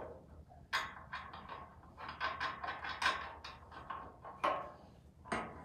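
Irregular metallic clicks and clinks, about a dozen sharp knocks spaced unevenly, as the bolts and nuts of a Mustang II upper control arm are handled, started and snugged on the crossmember mount.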